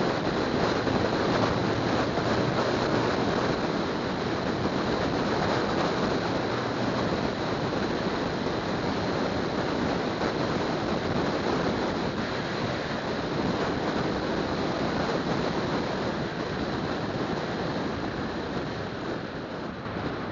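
Steady rush of tyre and wind noise from a car driving along at road speed, with a faint high steady tone above it.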